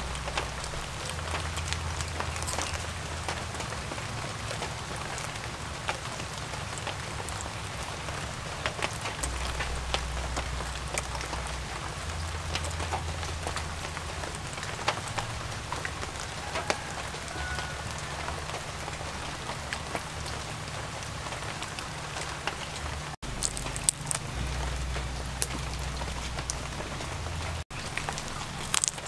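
Light rain pattering steadily, a dense run of small drops and ticks. The sound breaks off for an instant twice near the end.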